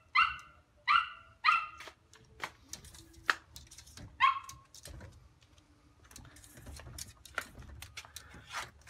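Small terrier yapping in short, high barks: three quick barks in the first two seconds and one more about four seconds in, with scattered light taps and clicks in between.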